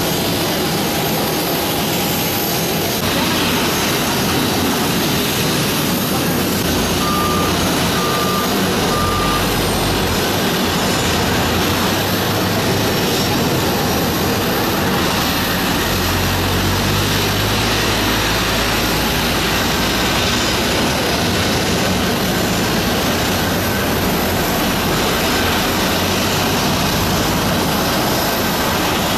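Jet engines of a Boeing 737 Classic freighter running steadily close by, an even rush with a low rumble that swells and eases. Three short beeps come about a quarter of the way in.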